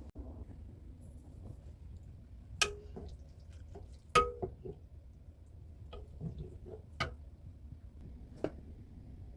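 Tableware clinking: four sharp clinks, the loudest about four seconds in with a short ring, and a few softer knocks between them.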